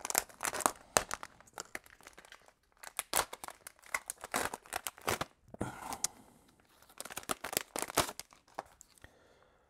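Small clear plastic parts bag crinkling and rustling in the hands, in irregular bursts with short pauses.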